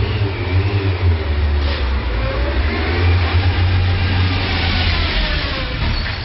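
A loud vehicle engine with a deep rumble, revving: its pitch climbs over the first few seconds, then slides back down and eases near the end.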